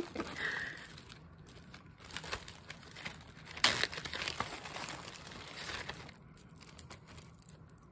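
Plastic zip-top bags crinkling and rustling as hands rummage through them and lift one out, with irregular sharp crackles, the loudest about three and a half seconds in.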